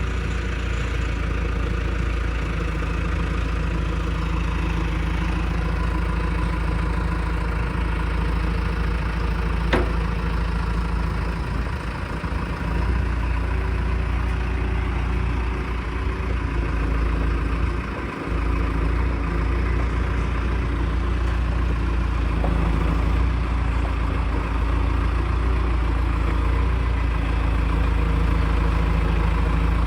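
Truck engine and road noise while driving, a steady low rumble with one sharp click about ten seconds in and two brief dips in level.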